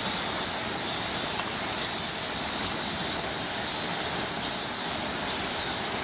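Summer cicada chorus: a steady, high-pitched drone with a faint pulsing shimmer.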